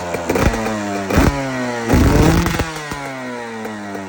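Yamaha YZ125 single-cylinder two-stroke dirt bike, fitted with an FMF Fatty expansion pipe and Shorty silencer, being revved in quick throttle blips about three times, the revs falling back between them and settling lower near the end.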